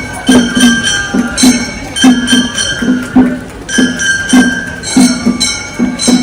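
Gion-bayashi festival music: small brass hand gongs (kane) clanging with a ringing metallic tone in a quick, steady rhythm, over regular drum beats.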